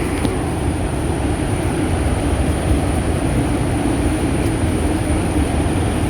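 Loud, steady roar of Athirappilly waterfall in full spate, a deep continuous rumble. A thin steady high tone runs above it.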